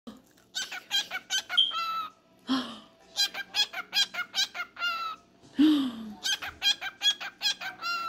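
Cockatiel singing: three runs of quick, clipped chirps, each ending in a short held whistle. Between the runs come two short, lower sounds.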